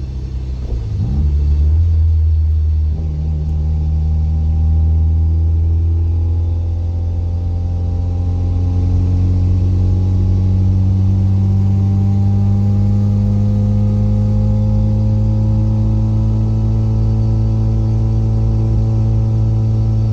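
Mazda FC RX-7 rotary engine and loud exhaust under steady acceleration, its pitch climbing slowly after a brief dip near the start. Drivetrain noise comes through solid delrin differential and subframe bushings to a microphone mounted over the differential.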